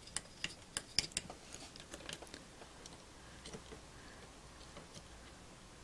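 Fiberglass scratch pen scrubbing dirty connector pins: a quick run of small, sharp scratching clicks in the first couple of seconds, then a few fainter ticks about three and a half seconds in.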